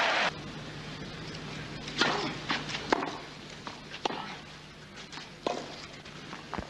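Tennis rally on a clay court: sharp racket-on-ball pops, a stroke about every second or so, over a low steady hum. A loud burst of crowd noise cuts off abruptly just as it begins.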